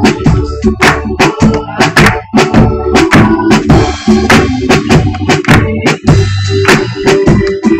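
Live band playing an instrumental stretch of a gospel song: a drum kit beating a steady rhythm over held organ chords.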